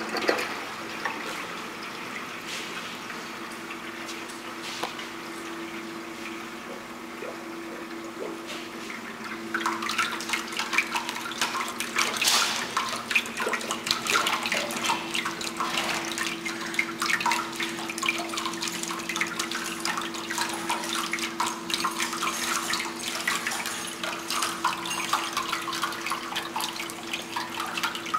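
Water running down an indoor glass water wall and splashing into its bottom reservoir, over a steady low hum. About ten seconds in the splashing grows louder and busier, with many sharp drips.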